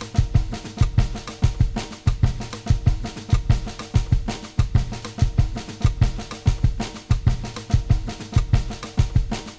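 Background music led by a drum kit: a steady beat of kick and snare hits with sustained tones under it.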